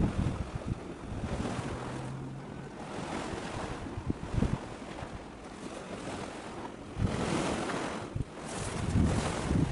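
Gusty wind buffeting the microphone, swelling near the start, about seven seconds in and again near the end.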